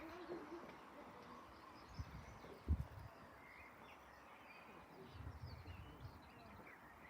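Quiet outdoor ambience with small birds chirping now and then. Two short low thumps come about two and nearly three seconds in, the second the loudest, with a soft low rumble later on.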